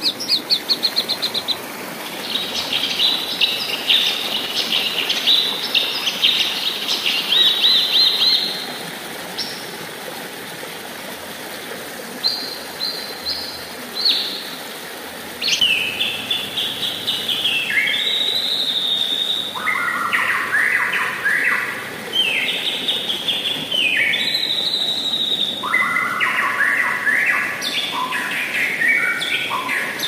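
Caged songbirds singing over the steady rush of a river. The first half holds fast, high chattering trills. From about halfway, a white-rumped shama sings varied song phrases that sweep between lower and higher notes.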